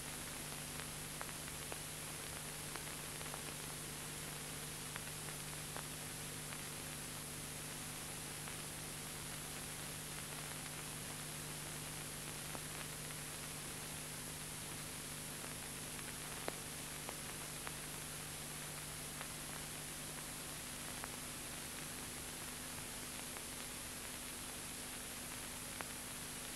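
Steady hiss with a low hum and scattered faint clicks: the background noise of an old film soundtrack, with nothing else heard.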